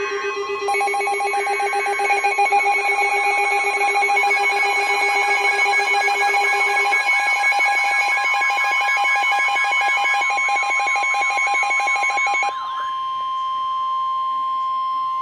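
Emergency alert tones from weather alert receivers: several electronic alarms sound at once, rapid pulsing beeps layered with a warbling tone. About twelve seconds in they stop, leaving a single steady tone near 1 kHz, the NOAA Weather Radio warning alarm that comes before a severe weather warning message.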